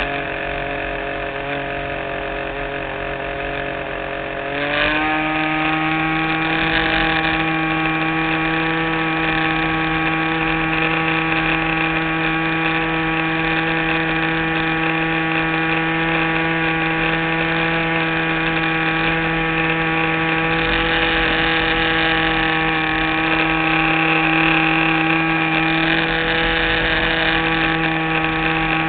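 R/C model airplane's engine running in flight, recorded onboard through a GoPro's underwater housing. It runs steadily, then speeds up a little about four and a half seconds in and holds the higher speed.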